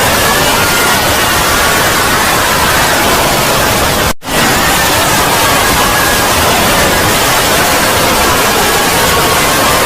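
Loud, harsh static-like noise filling the whole range, with faint wavering tones buried beneath it; it cuts out for a split second about four seconds in, then resumes.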